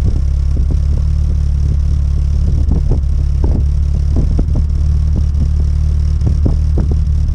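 1975 BMW 2002's four-cylinder engine idling steadily at the tailpipe while still warming up from a cold start: a deep, even drone with irregular short ticks over it.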